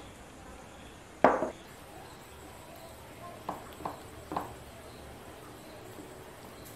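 A ceramic bowl is set down on a wooden table with one sharp knock that rings briefly. About two seconds later come three lighter clicks, as dishes are touched on the table.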